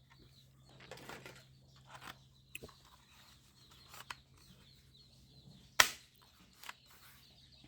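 Plastic toy gun being fired: a handful of sharp clicks and snaps, the loudest two about six seconds in and at the end.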